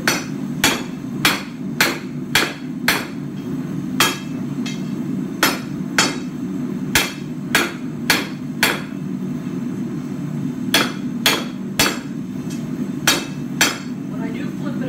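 Hand hammer striking a hot mild steel bar on an anvil while tapering it: sharp, ringing metallic clangs in short runs of about two strikes a second, with brief pauses between runs. A steady low hum continues underneath.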